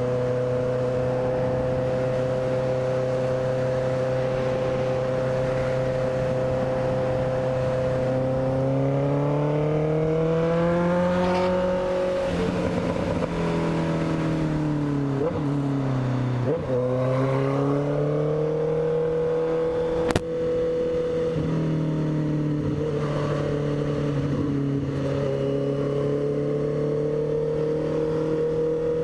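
Honda CB650F's inline-four engine running under way at a steady note, climbing in pitch as it accelerates about ten seconds in, dipping briefly twice, then rising and holding steady again. A single sharp click about twenty seconds in.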